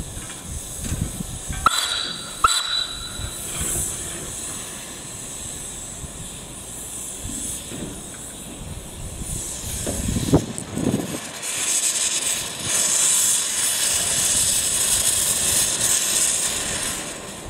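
Steam motor coach 'The Coffee Pot' (SMC1) working slowly in reverse: two sharp knocks about two seconds in, a few low thumps near the middle, then a long steady hiss of steam through most of the second half.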